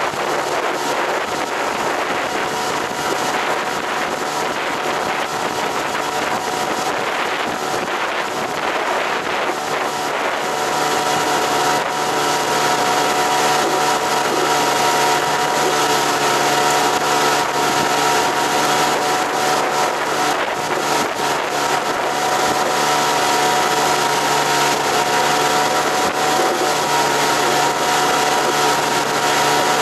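Outboard motor of an inflatable fishing boat running steadily under way, its pitch constant, getting louder about ten seconds in.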